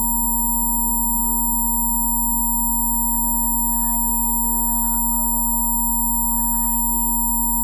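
Several steady electronic sine tones held together: a low hum, a mid tone near 1 kHz and high-pitched whines. They sound over soft ambient music whose notes change slowly.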